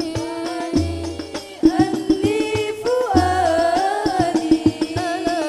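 Women's voices singing an Arabic sholawat together with a wavering, ornamented melody, over banjari frame drums (terbang) beating a busy rhythm with sharp hand strokes and recurring deep bass-drum thuds.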